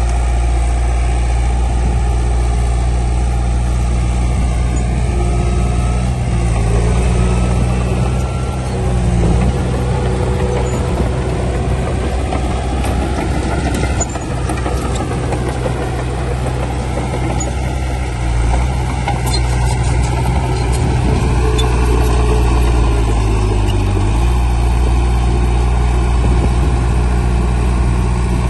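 Heavy diesel engine of earthmoving machinery running steadily under load, its pitch shifting up and down several times as the load changes.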